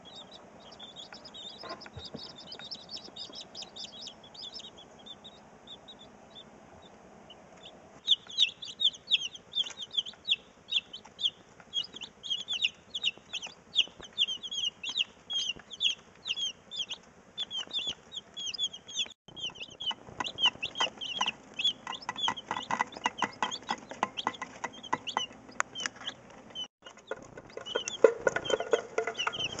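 Day-old chicks peeping: many short, high-pitched, falling cheeps in quick succession, faint at first and much louder from about eight seconds in.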